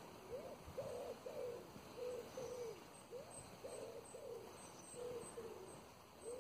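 A bird cooing: a run of short hooting notes, mostly in pairs, repeating several times.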